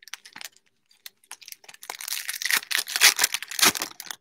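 Foil wrapper of a Panini Select basketball card pack being handled and torn open: light rustling at first, then about two seconds of loud crinkling and tearing of the foil toward the end.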